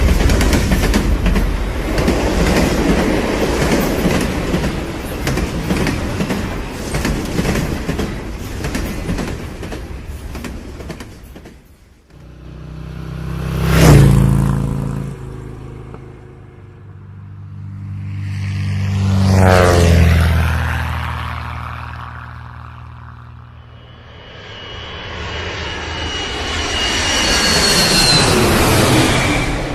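A train running on its rails, a dense rumble with clatter, which cuts off abruptly about twelve seconds in. Then three things pass by one after another, each swelling and fading away with a dropping pitch. The first is short and the loudest, and the last carries a high whine.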